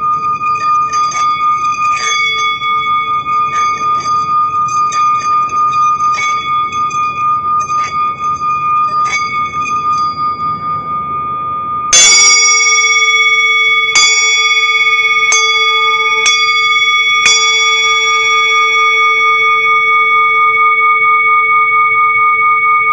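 Metal singing bowls ringing. For the first ten seconds a small bowl holds a steady high ring with faint light taps. About twelve seconds in a larger bowl is struck hard with a wooden striker, the loudest moment, then struck four more times over the next few seconds, and it rings on in a lower, sustained tone.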